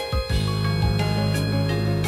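Background music with a steady bass line, a melody and regular percussion hits.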